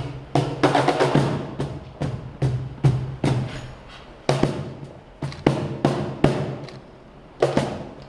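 Tap shoes striking the floor in quick, uneven rhythmic clusters of sharp clicks, over music.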